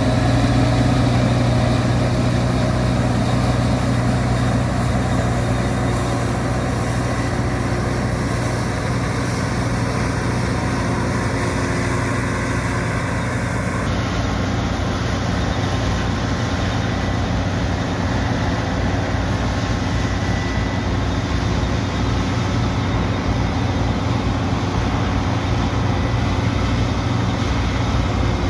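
New Holland CR11 combine harvester running while harvesting wheat: a steady, loud engine drone mixed with the noise of the machinery. The higher part of the sound shifts abruptly about halfway through.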